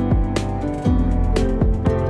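Background music: plucked guitar-like notes over a steady beat, with a sharp hit about once a second.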